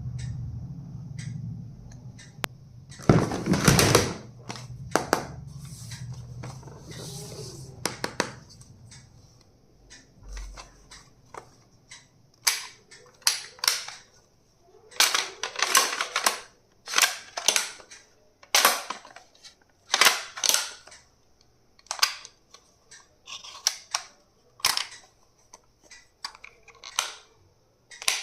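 Stationery items and their plastic packaging being handled and unpacked: a string of irregular sharp clicks, snaps and rustles, thicker and louder in the second half. A low steady hum runs under the first third.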